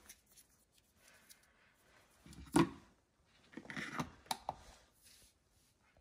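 A detergent tablet is put into a dishwasher's plastic detergent dispenser and the dispenser lid is snapped shut, giving a loud knock and then a cluster of handling noise with several sharp clicks.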